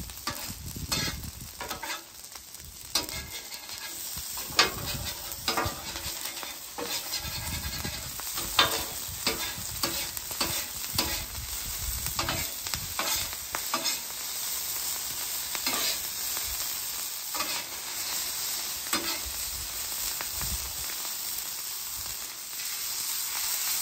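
Metal spatula scraping and tapping across a hot flat-top griddle as it fluffs and turns cooked rice, over a steady sizzle of rice frying in oil. The scrapes come over and over.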